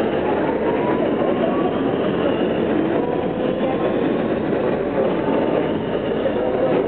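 Steady running noise of an R160B Siemens subway car, heard from inside the car as it pulls out of a station into the tunnel. A faint motor whine rises slightly as it picks up speed.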